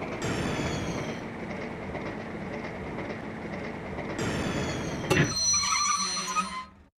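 A train running on the track: a steady rumble of wheels on rails, with a high whine that falls in pitch near the start and again about four seconds in. There is a sharp click about five seconds in, and the sound fades away just before the end.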